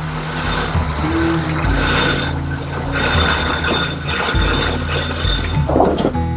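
Background music with sustained notes that change every second or so.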